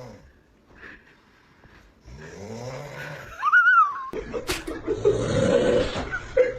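Snoring: a low snore begins about two seconds in, then a high squeaky whistle rises and falls, and from about four seconds in a louder, noisier snore follows.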